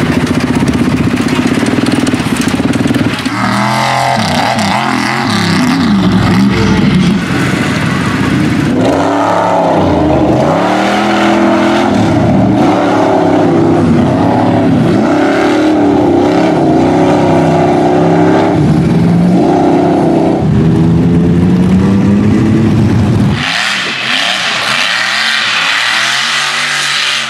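Lifted mud trucks' big engines revving hard, the note rising and falling again and again as the trucks are driven through mud. Near the end the engine drops lower under a hissing spray of mud and water.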